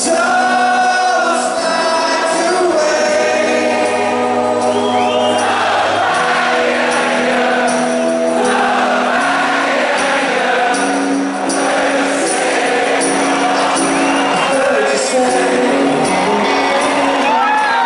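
Live rock band with a sung melody, recorded from the audience in a large arena hall. About five seconds in, crowd noise swells under the music.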